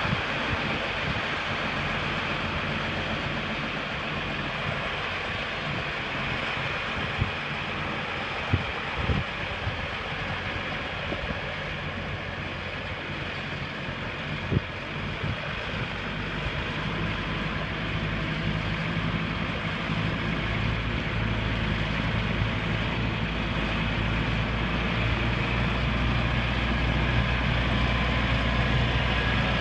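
Case IH MX270 tractor's six-cylinder diesel engine running steadily, with a few sharp knocks in the first half. It gets louder and fuller over the second half.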